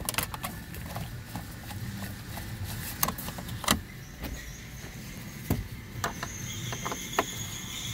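Scattered clicks and knocks of hands working plastic dashboard trim and its push-pin clips, over rustling handling noise. A faint steady high tone comes in about six seconds in.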